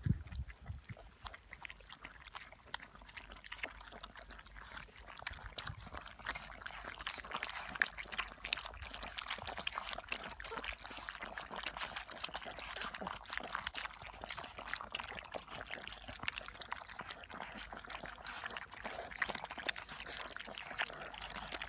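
Golden retriever puppies lapping wet food from a shared round stainless steel feeding pan: a dense, irregular stream of small wet smacks and clicks from many tongues at once, building up over the first couple of seconds.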